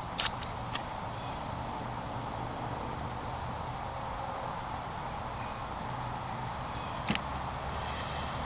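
A few light clicks and taps of paint bottles and a brush being handled, over a steady background rumble and hiss with a faint high whine.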